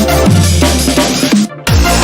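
Electronic drum-and-bass background music with a heavy bass beat, cutting out for a brief moment about one and a half seconds in.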